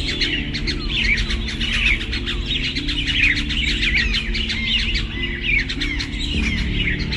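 Many small birds chirping at once, a dense, continuous chatter of short overlapping calls, with background music of low held notes underneath.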